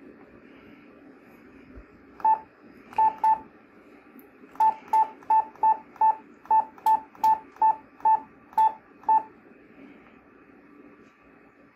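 Key beeps from a Yaesu transceiver as its band button is pressed repeatedly: one short beep, then two close together, then a rapid run of about a dozen at two to three a second, as the radio steps through its bands to 20 metres.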